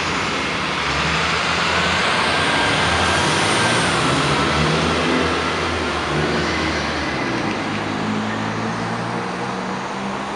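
Heavy vehicles accelerating away from a traffic light close by: a Nova Bus LFS diesel-electric hybrid city bus pulls away, then a GMC TopKick dump truck drives past, with engine pitch rising as they gather speed over steady traffic noise. The sound is loudest a few seconds in and fades as they move off.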